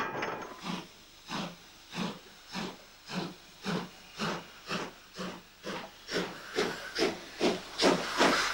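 Steam locomotive exhaust chuffing in even beats that quicken from about two to about three a second.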